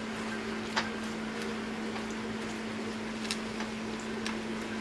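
Shrimp and butter sizzling in a skillet under a steady low hum, with a few light clicks as a wooden spatula stirs them.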